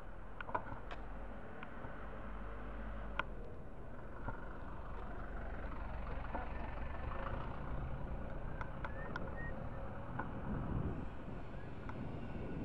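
Street traffic heard while riding along a town street: a van drives past close by about six seconds in, over a steady low wind rumble on the microphone, with a few sharp clicks.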